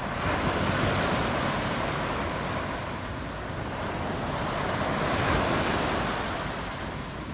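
Wind buffeting the microphone over a steady rush of sea surf, with no engine tone standing out.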